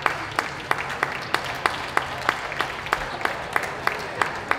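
Audience applauding in a steady patter, with one set of hands close by clapping sharply and evenly about three times a second.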